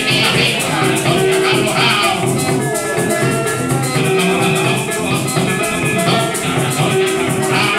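Golpe tuyero (central Venezuelan joropo): an arpa tuyera plucked in a busy melody over a steady, quick shaking of maracas.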